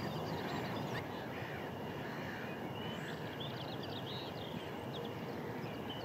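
Steady low background rumble with a few short, faint bird calls a little past the middle.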